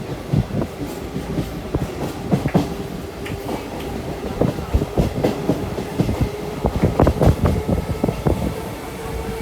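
Train running along the track, its wheels clattering irregularly over rail joints, with a faint steady hum underneath.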